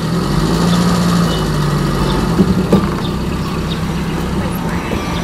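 A vehicle engine running steadily, with two short knocks about two and a half seconds in.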